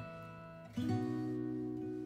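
Background music of acoustic guitar, sustained notes with a new chord strummed about three-quarters of a second in.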